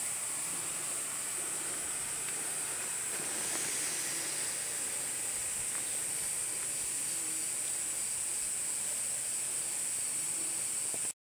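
Steady high-pitched hiss of quiet night-time background, even in level throughout, cutting off abruptly near the end.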